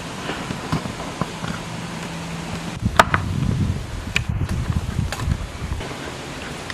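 Plastic latches on a car door-handle cover snapping out of their grooves as the cover is pried apart: three sharp clicks, the loudest about three seconds in, with plastic handling and rubbing noise between them.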